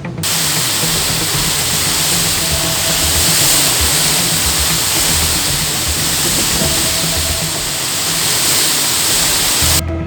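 Heavy rain pouring down in a steady, loud hiss that cuts in suddenly and cuts off just as suddenly, with background music faintly underneath.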